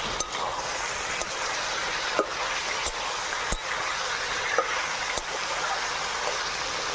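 Chicken pieces sizzling in hot oil in a metal kadai while being turned with a spatula: a steady frying hiss, with a few sharp clicks of the spatula against the pan.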